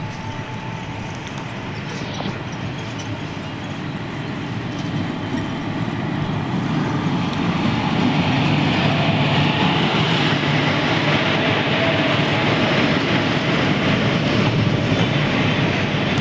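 Electric-locomotive-hauled passenger train of LHB coaches running into the station and passing close by. The rolling rumble grows louder as the locomotive draws alongside, then holds steady as the coaches go past.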